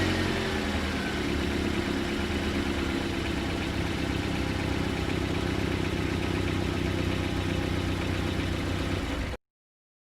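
Vehicle engine idling steadily just after starting, its revs settling down in the first second; the sound cuts off abruptly near the end.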